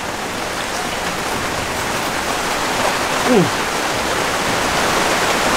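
A steady, rain-like hiss that grows slightly louder toward the end, with a short falling "mmm" from the man eating about three seconds in.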